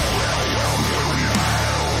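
Metalcore song playing: heavy distorted guitars and bass holding a sustained low chord, with no drum hits in this stretch.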